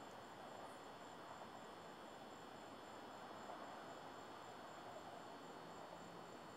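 Night crickets chirping in a steady, high, pulsing trill, faint under a low hiss.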